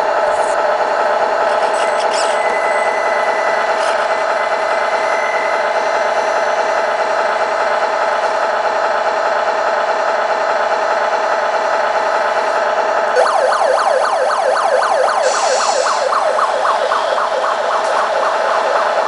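A steady, engine-like drone, then about two-thirds of the way in a small electronic police siren starts a fast yelp of about four sweeps a second, with a brief hiss partway through the siren.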